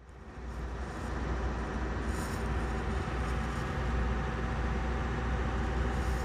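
Steady low rumble and road noise of a moving vehicle heard from inside its cabin, fading in over the first second.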